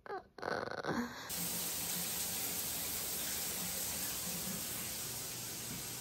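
Shower running: a steady rush of falling water that starts suddenly about a second in.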